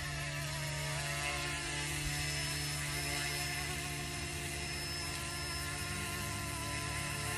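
Goosky S2 micro RC helicopter in flight: its electric motors and spinning rotors make a steady whine, the pitch wavering slightly as it moves around.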